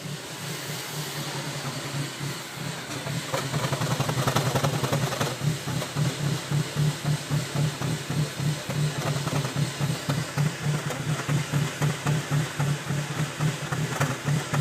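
2000 Volvo C70's five-cylinder engine running at a rough idle, with a steady low drone that swells and falls in a regular pulse somewhat under twice a second. The level rises over the first few seconds. The owner traced the rough running to a burnt wire in the engine computer after a reversed jump-start.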